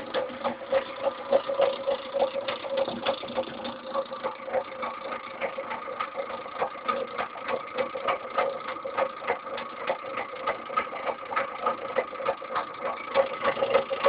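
Homemade reed-switch magnet motor running, its rotor spinning with a steady whine and a rapid, slightly uneven clicking.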